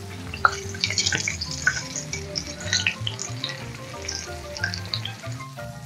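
Egg-battered green beans frying in hot vegetable oil in a metal pan, a continuous crackling sizzle.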